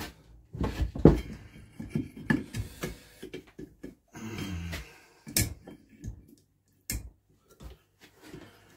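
Metal clinks, knocks and scrapes of a steel spanner being handled and fitted onto a seized BSA stationary engine, with two sharper clanks about halfway through.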